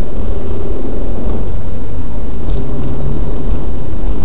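Car's engine and road noise heard from inside the cabin while driving, picked up by a dashcam microphone as a loud, steady rumble.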